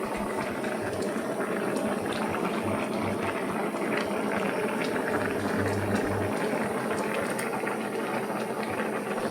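Food cooking on the stove: a steady bubbling with small scattered pops and crackles.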